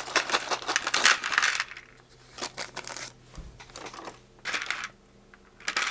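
Small electronic kit parts clattering and a plastic bag crinkling as the parts are tipped out, a dense patter of clicks for the first second and a half, then a few scattered clicks as the parts are handled.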